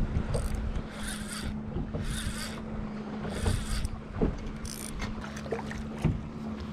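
Fishing reel being cranked in, a rasping, grinding noise coming about once a second over a steady low hum; the angler says the reel sounds awful.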